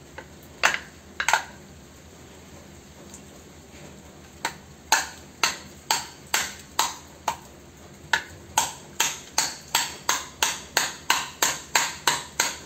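Hammer blows on the extruded aluminium case of an HID lighting ballast, knocking the stuck, resin-potted circuit board out along its slots, each strike ringing briefly. Two strikes come near the start, then a steady run of blows at about two to three a second begins partway in and gets quicker toward the end.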